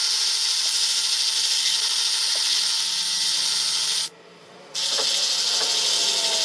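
A power tool runs steadily with a high whine, working the hub of a white plastic caster wheel. It cuts off about four seconds in and starts again half a second later.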